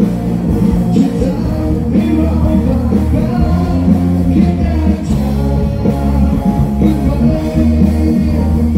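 Loud rock music with a singing voice, guitar and a heavy bass line.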